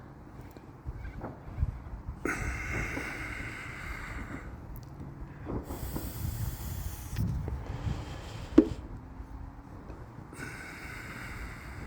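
Distant New Year's fireworks banging and crackling, with low rumbling booms and stretches of hissing, and one sharp crack about eight and a half seconds in that is the loudest sound.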